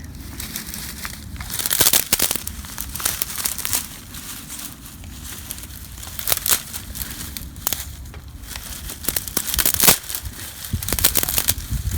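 Dry dead bean and gourd vines being snapped and crumpled by hand: an irregular run of crackles and sharp snaps over a low rustle, loudest about two seconds in and again near the end.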